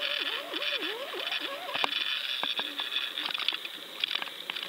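Underwater sound picked up by a GoFish Cam on a fishing line at depth: a muffled hiss with many scattered clicks. Through the first second and a half there is a wavering tone that rises and falls over and over.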